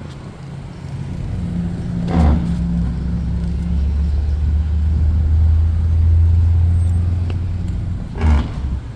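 Strong wind buffeting the microphone: a loud low rumble that builds over the first couple of seconds and holds, with two brief sharper gusts, one about two seconds in and one near the end.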